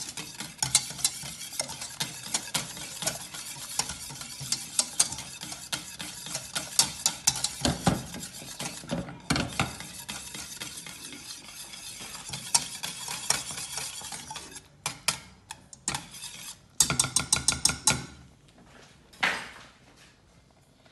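A spoon stirring a thickening pumpkin-and-cornstarch mixture in a saucepan on the heat, with rapid scraping and clinking against the pot. About fifteen seconds in it thins to scattered knocks, then mostly stops, with one last short scrape near the end.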